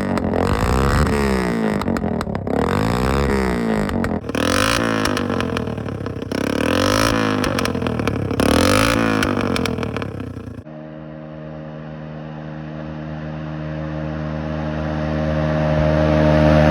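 Honda CT110 postie bike's single-cylinder engine on the move, revs rising and falling for about ten seconds. After a sudden cut it holds a steady note, growing louder as it approaches, and drops in pitch as it passes at the end.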